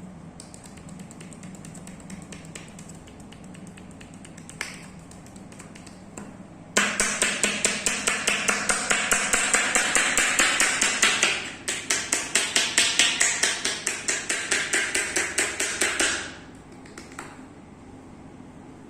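Rapid percussive massage strokes (tapotement): hands striking the body in a fast, even run of slaps, breaking off briefly partway through and then starting again for a second run.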